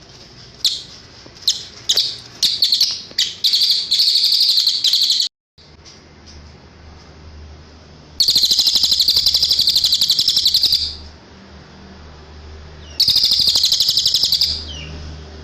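A cililin bird singing: a few sharp separate chirps, then fast high trills of rapidly repeated notes, each lasting one to three seconds. The song cuts off abruptly about five seconds in, and two longer trills follow after short pauses, over a faint low hum.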